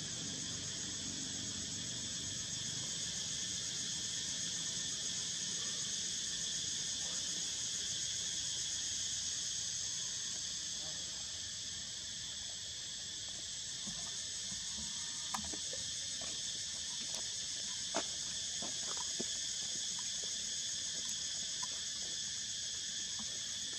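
Steady, high-pitched chorus of insects calling, with a few short sharp clicks in the second half.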